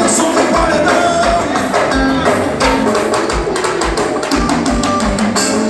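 Live band music with no vocals: a steady kick-drum beat under percussion and melodic instrument lines.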